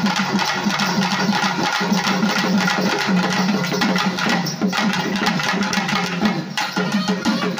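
Festival percussion ensemble playing a quick, steady beat on shoulder-slung barrel drums beaten with sticks, with a hand-held jingle ring shaking along.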